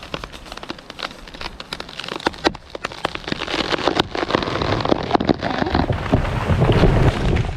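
Pine tree going over after the felling cut: dense, irregular cracking and snapping of wood and branches, growing louder and heavier toward the end.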